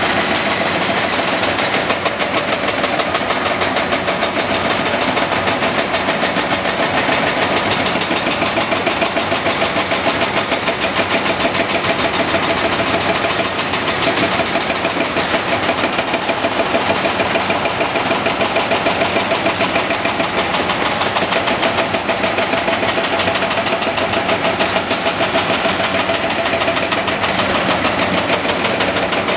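Cat 330D L excavator's diesel engine running steadily as it digs and loads broken concrete, a constant hum over a fast, even pulse.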